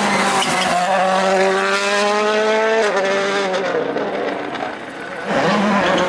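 Toyota Yaris WRC rally car's 1.6-litre turbocharged four-cylinder engine accelerating hard, its pitch climbing steadily until an upshift about three seconds in, then fading as the car pulls away. About a second before the end, another rally car comes in suddenly and loud.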